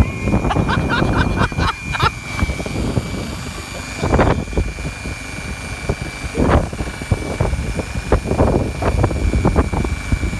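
Leister Uniplan hot-air roofing welder running, its blower giving a steady high whine over rough, uneven rushing noise, with louder bursts about four and six and a half seconds in.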